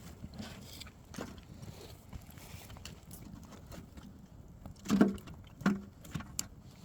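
Wood fire burning with scattered faint crackles and pops. Two brief louder sounds stand out about five seconds in, about two-thirds of a second apart.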